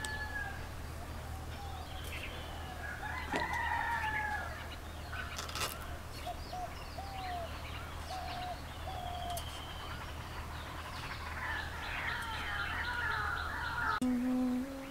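Chickens and small birds: a rooster crowing once about three seconds in, a run of short hen clucks, and birds chirping throughout. A steady low hum lies underneath and stops near the end.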